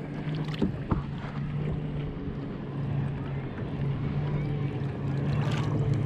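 A boat's motor running steadily with a low, even hum, with a couple of light knocks about a second in.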